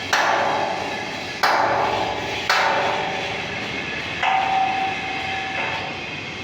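Hammer striking metal: three sharp blows about a second apart, each with a ringing tail, then a lighter fourth blow that leaves the metal ringing on one clear tone for over a second.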